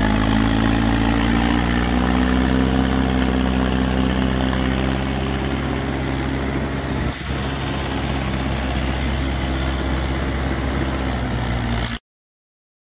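Mahindra 575 DI XP Plus tractor's four-cylinder diesel engine running loud and steady while hauling a fully loaded trolley, its pitch rising a little at first. There is a brief break about seven seconds in, and the sound cuts off suddenly near the end.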